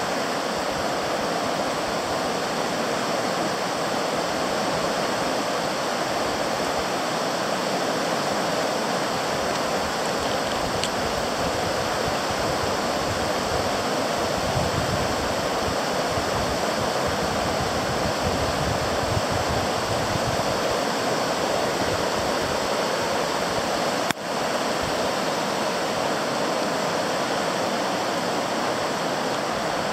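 Flooded South Fork Eel River: the steady rushing roar of high, fast floodwater. A single short click breaks it about three quarters of the way through.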